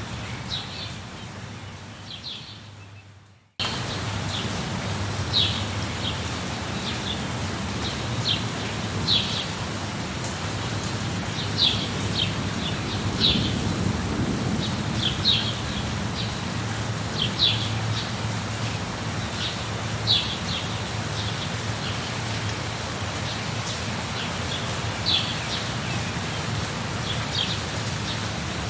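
Steady rain with a low rumble of thunder swelling about ten seconds in, and short bird chirps repeating every second or two. The sound fades down over about three seconds near the start, then cuts back in suddenly.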